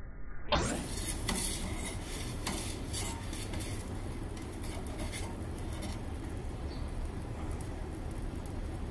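Gas burner of an Ooni Koda 16 pizza oven burning steadily with a low rush. Over it, a metal turning peel scrapes and clicks against the baking stone as the pizza is turned, mostly in the first five seconds.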